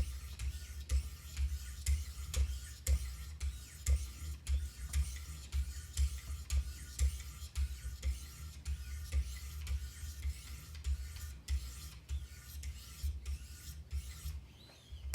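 600-grit sharpening stones on a Wicked Edge guided sharpener rasping along a CPM-M4 steel knife blade, in quick repeated strokes about two a second.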